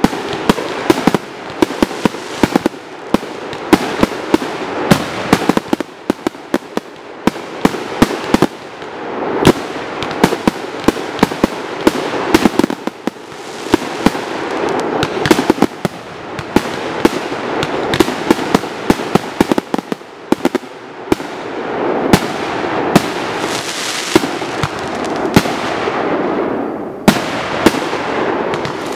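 Consumer firework cakes and shells firing in a finale barrage: rapid, irregular bangs, many a second and some very loud, over a continuous noisy wash.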